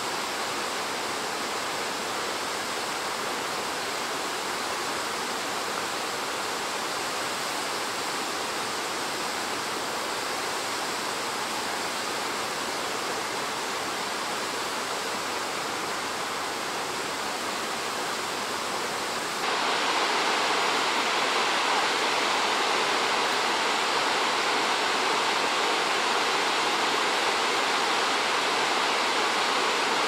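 Steady rush of the Salto Grande waterfall on the Paine River, falling water and spray. About two-thirds of the way through, the rushing steps up louder and brighter.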